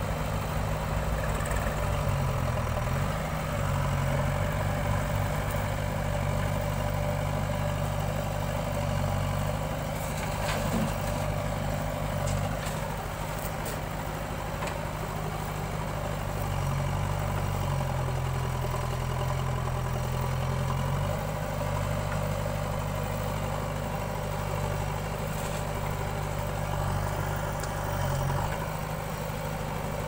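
Diesel engines of a JCB backhoe loader and a tractor running steadily at low revs. The engine note steps up for a few seconds about two seconds in and again past the middle, then settles back.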